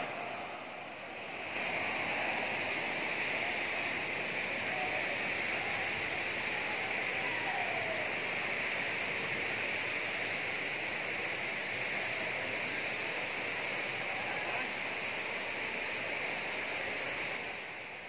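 Waterfall: a steady, even rush of falling water. It is a little quieter for the first second or so, then holds constant.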